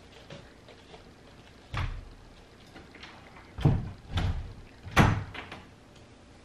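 Pantry cupboard doors and things inside being handled: a string of knocks and thuds, the loudest four coming between about two and five seconds in, with lighter clicks between.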